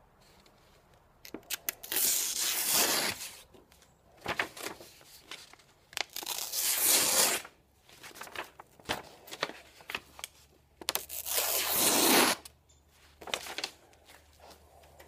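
A knife blade slicing through a sheet of paper three times, each long cut about four seconds after the last and led by a few small clicks. It is a sharpness test of the freshly sharpened edge.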